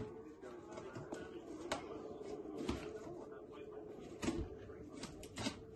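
Packing tape on a cardboard box being slit and worked open with the corner of a flat screwdriver: scattered scrapes, taps and cardboard rustles over a faint steady hum.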